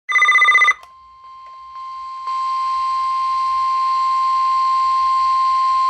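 NOAA Weather Radio broadcast: a short buzzy burst of data tones at the start, then the steady 1050 Hz warning alarm tone over light radio hiss. The tone steps up in loudness over its first second and a half, then holds.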